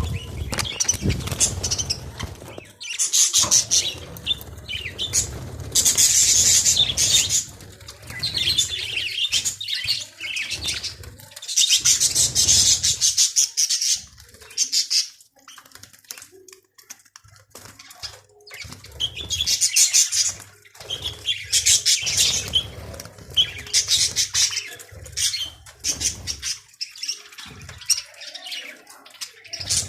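Budgerigars chattering and chirping in repeated bursts a second or two long, with short quiet gaps between.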